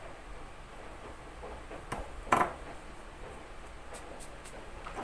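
A small glass spice jar knocked down onto a wooden countertop: a light tap, then a sharp knock a little after two seconds in, followed by a few faint clicks.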